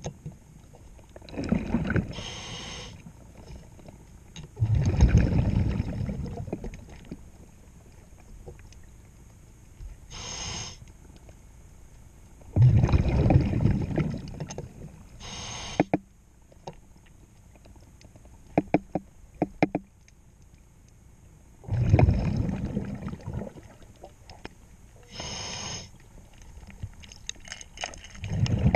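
Underwater sound of a diver breathing through a regulator: a burst of rumbling exhaust bubbles on each exhale every few seconds, with a short hiss of the regulator on each inhale between them. About two-thirds through there is a quick run of light metallic clicks from the tool working on the propeller-shaft zinc.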